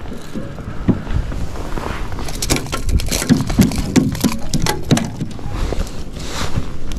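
A freshly landed small barracuda knocking and slapping on wooden dock planks while it is handled, giving an irregular run of sharp knocks and clicks with low thumps, thickest in the middle seconds.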